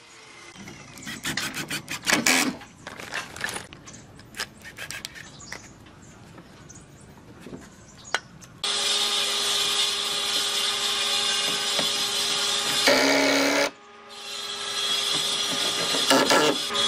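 Scattered knocks and clicks of workshop hand work, then an electric power tool starts and runs with a steady hum. It cuts out briefly about three-quarters of the way through and then runs again.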